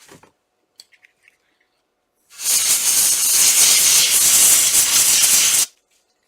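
Canned-air duster blowing a steady hiss for about three seconds, starting a couple of seconds in and cutting off sharply, as it blows excess oil off a freshly oiled regulator spring. A few faint clicks come before it.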